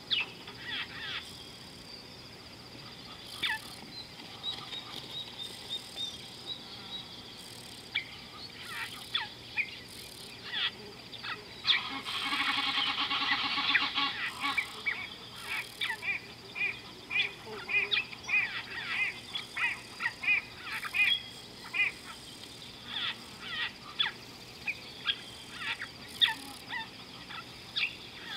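Birds calling over and over in short, repeated calls, with a dense burst of calling about twelve seconds in.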